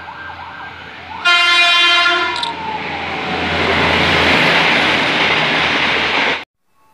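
Kereta Inspeksi 2, a passenger railcar converted from an inspection train, sounds one short horn blast about a second in. Then comes the loud rush of the train running through the station, which cuts off suddenly near the end.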